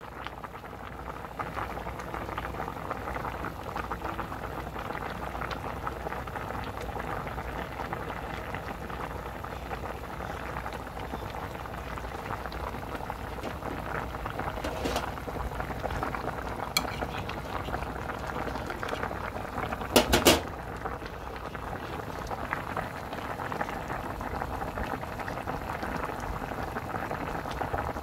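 Spicy broth with whole abalone in their shells at a rolling boil in a pot, bubbling steadily. A few sharp clicks break in partway through, the loudest a quick double knock about two-thirds of the way in.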